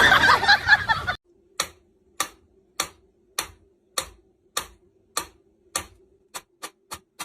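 A loud, noisy burst for about the first second, then sharp single clicks at an even pace of about one every 0.6 s, quickening to about four a second near the end, over a faint steady hum.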